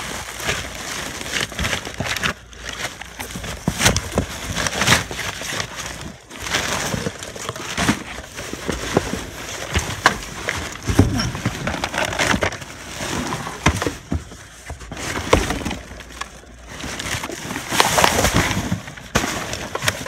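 Plastic trash bags, plastic wrap and cardboard rustling and crinkling as trash is rummaged through and shoved aside by hand, with irregular sharp crackles and bumps.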